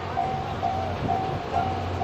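Level crossing warning bell ringing, a repeating electronic tone about twice a second, over a low steady hum.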